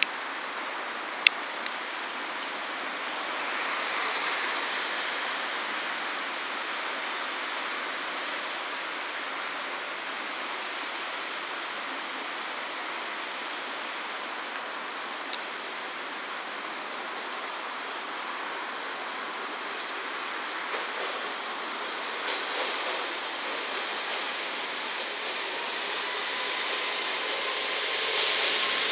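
Two-car KiHa 47 diesel railcar train approaching slowly: a steady rumble of engine and track noise that grows louder near the end as it comes close. A single sharp click sounds about a second in.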